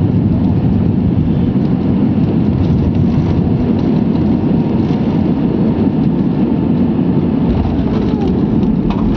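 Airbus A320 passenger-cabin noise on final approach: the steady, deep rush of the jet engines and airflow heard through the fuselage as the airliner descends low over the runway just before touchdown.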